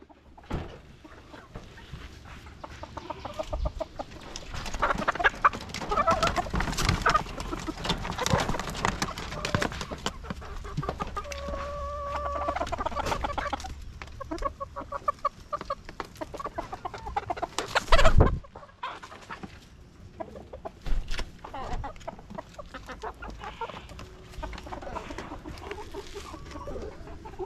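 Domestic hens clucking and calling, with scattered scraping and handling noise. One loud thump about two-thirds of the way through.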